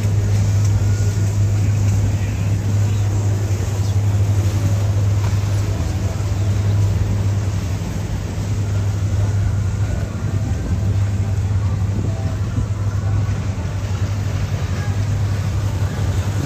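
Motorboat engine running steadily under way, a constant low hum beneath a wash of wind and water noise.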